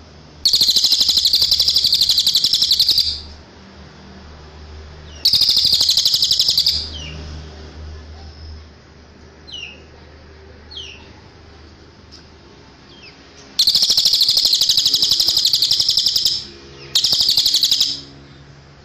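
Cililin songbird singing: four loud, fast trilling phrases, wavering in pitch, each lasting one to three seconds, with a few faint short falling notes between them.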